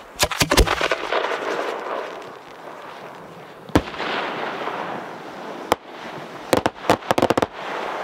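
A 4-inch aerial firework display shell: a quick cluster of sharp bangs as it leaves its mortar, a hiss, then a single sharp bang about four seconds in as the shell bursts. Another report follows, then a rapid string of cracks near the end as the stars split, typical of a crossette shell.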